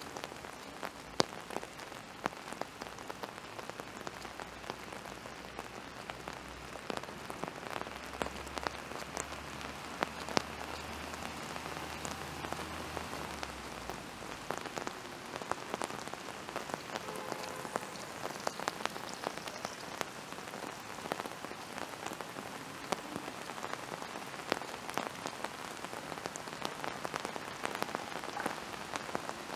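Steady rain falling, with many sharp taps of individual drops close by. A low hum sits under it for several seconds in the middle.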